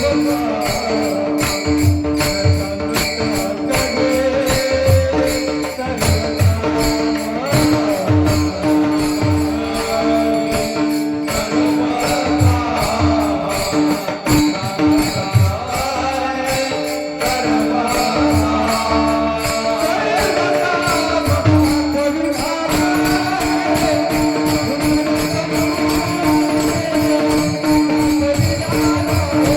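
Devotional kirtan music: a steady held drone under a bending melody, with regular hand-drum beats and a fast, even jingle of small cymbals keeping time.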